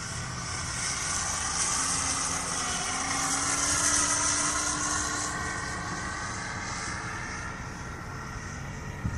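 Electric RC model Cessna's 10-size motor and propeller whining in flight. It grows louder over the first few seconds and then fades as the plane passes by.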